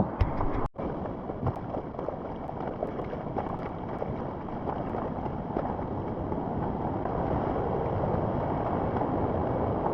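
Steady rushing of a stream cascading over rocks, briefly cut off about a second in.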